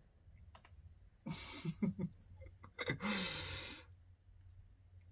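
A man's breathy laughter and exhale: two short bursts about a second apart, the second a longer airy exhale, with a few faint mouth clicks.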